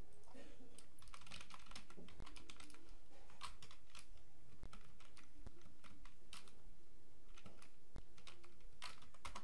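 Typing on a computer keyboard: a run of irregular keystroke clicks, with a quick cluster of keystrokes near the end.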